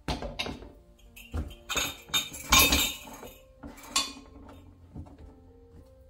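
Ceramic mugs with spoons in them and a ceramic bowl set down one after another on a plastic shelf: a string of clinks and knocks, loudest about two and a half seconds in.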